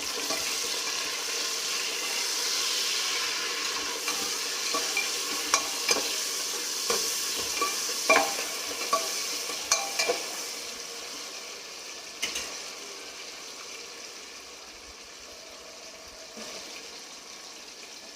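Onions and tomatoes frying in hot oil in a pan, sizzling steadily, while a spatula knocks and scrapes against the pan in a run of sharp clicks as they are stirred. The sizzle dies down in the second half.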